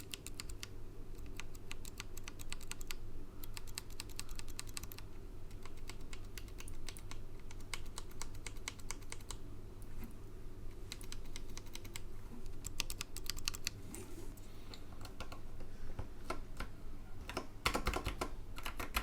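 Typing sound test on a NextTime 75 hot-swap mechanical keyboard fitted with Akko Ocean Blue tactile switches: a steady run of keystroke clacks, denser near the end.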